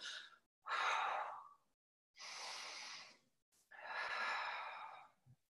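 A woman's deep breaths in time with an exercise: three breaths of about a second each, with short pauses between.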